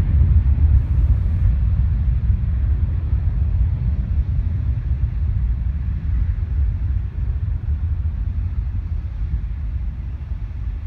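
Low rumble of departing jet airliners climbing out after takeoff, fading slowly.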